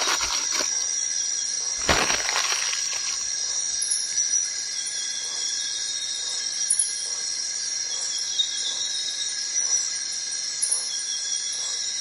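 Steady high-pitched drone of a forest insect chorus, with a single knock about two seconds in and a few light clicks and taps as instant noodles are stirred in an aluminium pot.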